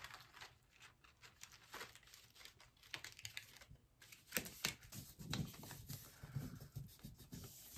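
Faint rustling and crinkling of a sheet of copy paper being rubbed and pressed down by hand onto an inked gel printing plate to take up the print, with a few sharper crinkles about halfway through.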